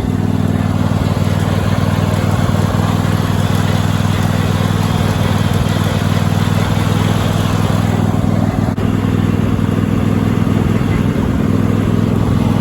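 Cub Cadet garden tractor's swapped-in 26 hp Briggs & Stratton engine running at a steady speed while the tractor is driven.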